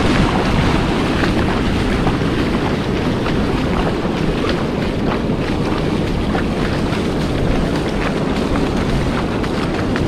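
Ocean surf washing up a sandy beach, with wind buffeting the microphone and feet splashing through the shallow water.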